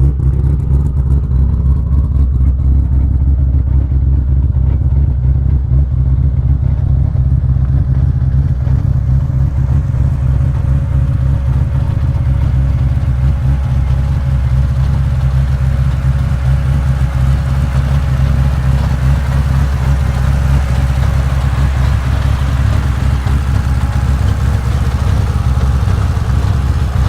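Drift car's engine running steadily at idle after startup, with no revving.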